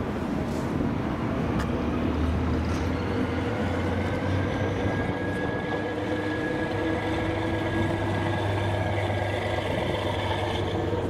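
DB class 363 diesel shunting locomotive running under power as it moves along the yard track hauling a coupled electric locomotive. Its engine holds a steady deep hum, and its note rises slowly over the first few seconds.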